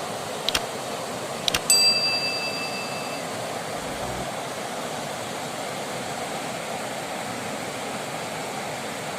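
River water rushing steadily. Two short clicks, then a bright, bell-like ding about two seconds in that rings for about a second and a half.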